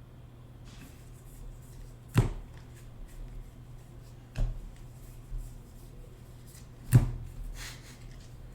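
Trading cards being handled on a table: faint rustling with three sharp taps, about two, four and a half, and seven seconds in.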